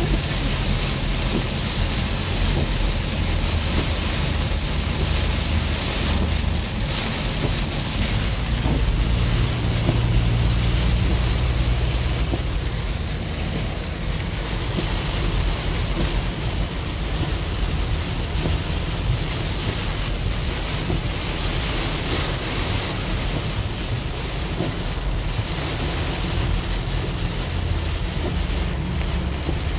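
Heavy rain falling on the windshield and roof of a 2006 Ford Freestar minivan, heard from inside the cabin, mixed with a low rumble of tyres on the flooded highway and wind. The noise is steady, growing a little louder for a few seconds about ten seconds in.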